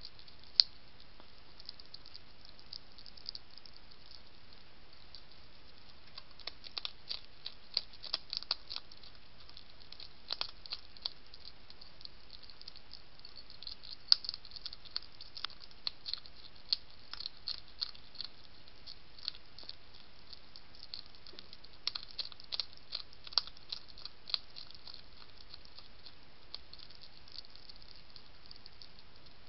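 A European hedgehog crunching dry kibble from a plate: clusters of sharp crunches and clicks in bouts with short pauses between them, over a steady background hiss. The last few seconds are almost free of crunches.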